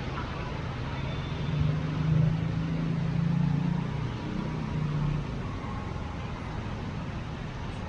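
Road traffic in heavy rain: a steady hiss, with a vehicle engine's low drone swelling for a few seconds, from about one and a half seconds in.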